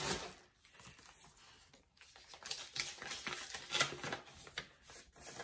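Packaging rustling and crinkling as items are handled in an opened parcel: a few short rustles at first, then a busier stretch of rustling from about two seconds in, with one sharper crinkle near four seconds.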